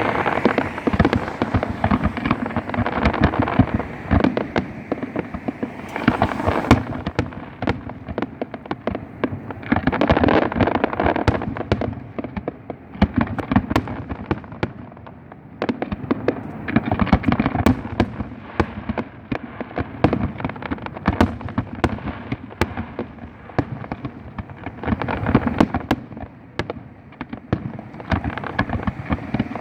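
Fireworks display: a dense, continuous run of bangs and crackling, with louder volleys that swell and ease off several times.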